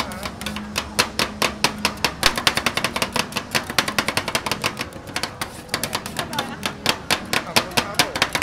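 Two metal spatulas chopping and scraping strawberry and cream mixture on the steel cold plate of a Thai rolled ice cream pan: a fast, uneven run of sharp metal taps, several a second, as the liquid mix is worked into a cream while it freezes.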